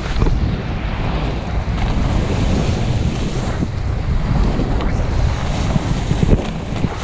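Wind buffeting the microphone of a moving action camera: a loud, uneven rumble.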